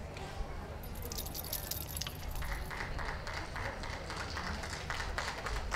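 Ringside spectators clapping lightly over a steady low outdoor rumble. The clapping grows denser about two seconds in.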